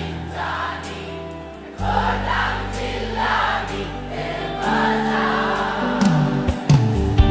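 Background music: a Nepali song with singing voices over sustained bass notes, a deeper note coming in about two seconds in.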